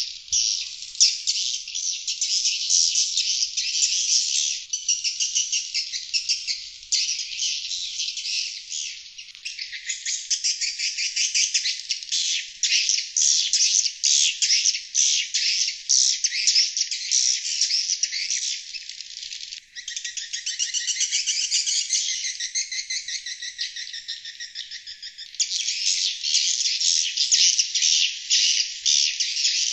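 Sriti swiftlets' outdoor lure call (suara panggil sriti luar): dense, rapid high twittering chirps that run on without a break. The pattern changes abruptly a few times, as between spliced or looped segments. It is the sound played outside swiftlet houses to draw in wild sriti.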